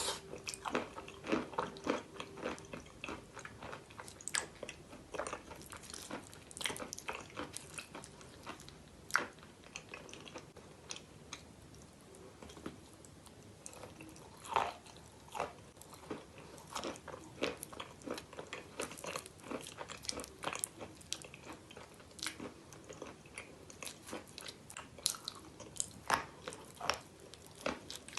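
A person biting into and chewing a crunchy chalk bowl filled with clay paste, close to the microphone. Irregular sharp crunches come every fraction of a second throughout.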